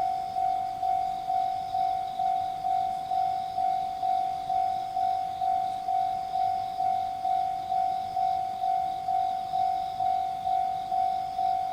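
Japanese railway level-crossing warning bell ringing: a single electronic ding repeated steadily about twice a second, each strike sharp and fading, the signal that a train is approaching and the crossing is closed.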